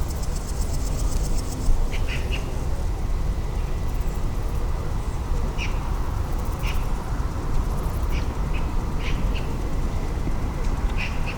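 Short, sharp bird calls, repeated about a dozen times at irregular intervals over a steady low rumble. A fast, high ticking runs through the first second and a half.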